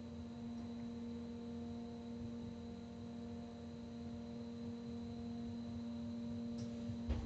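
Rhaetian Railway electric train running, heard inside the driver's cab: a steady electric hum with several fixed tones over a low rolling rumble from the wheels on the track, with a few faint clicks near the end and a sharp knock right at the end.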